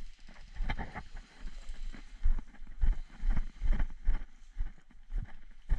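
Footsteps walking over dry leaves and twigs on a woodland floor, about two steps a second, each step with a low thud from the body-worn camera.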